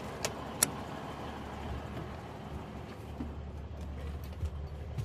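Cummins NTC 400 inline-six turbo diesel in a Mack Cruiseliner cab-over idling steadily with a low hum, with two sharp clicks in the first second.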